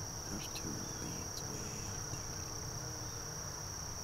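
Steady high-pitched insect chorus, one unbroken shrill note, over a low wind rumble on the microphone, with a couple of faint ticks.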